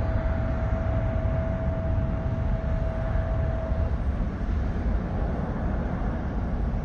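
Boeing 767-200 freighter's twin jet engines at takeoff power as it lifts off and climbs away: a steady deep roar, with a thin steady whine that stops about four seconds in.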